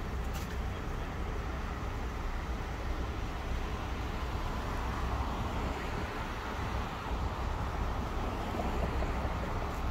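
Steady low rumble of vehicles, without distinct events.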